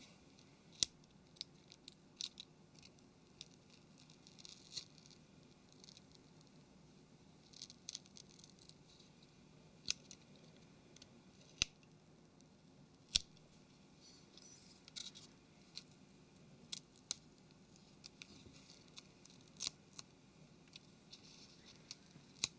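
A small flat-blade screwdriver tip clicking and scraping against a phone's plastic frame and flex cable while prying the cable free of its adhesive. The clicks are faint, sharp and irregular, a second or two apart, with a few louder snaps.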